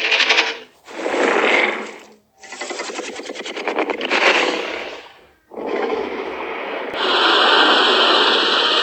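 A series of four harsh, rasping Godzilla-style roars separated by short gaps, some with a fast rattling trill; the first is short and the last, longest one carries on past the end.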